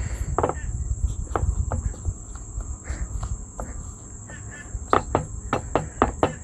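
Hands pressing and patting pizza dough flat on a wooden cutting board, with a few scattered light knocks and a quick run of about six about five seconds in, over a steady high-pitched insect drone.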